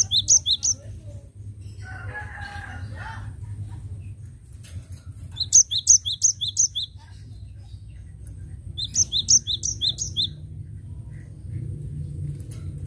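Cinereous tit (gelatik batu) singing: three bursts of quick, repeated high two-note phrases, each about a second long, at the start, about five and a half seconds in, and about nine seconds in.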